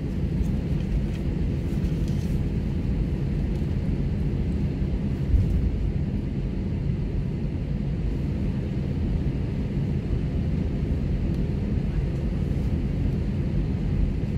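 Jet airliner's engines at takeoff power heard inside the cabin during the takeoff roll: a steady low rumble of engine and runway noise, with a single bump about five seconds in.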